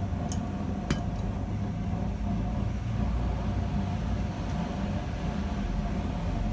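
A steady low mechanical hum with a faint whine, and two sharp light clicks in the first second.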